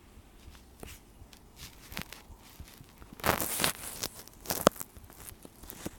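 Handling noise from a phone being held and tapped through: scattered light taps and rustles, with a louder scraping rustle about three seconds in and a sharp tap a little later.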